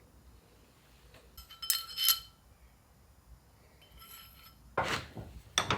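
Small steel gearbox parts and tools clinking together by hand: two bright ringing chinks about two seconds in and a fainter one near four seconds, then a couple of duller knocks near the end.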